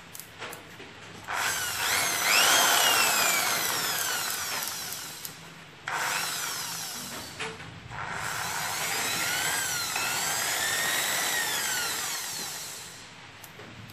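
Corded electric hand drill motor run on its variable-speed trigger. It spins up to a high whine and then slows down, twice, with a short blip of the motor between the two runs, about six seconds in.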